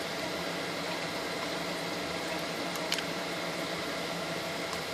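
Steady low hiss of background noise, with one light click about three seconds in.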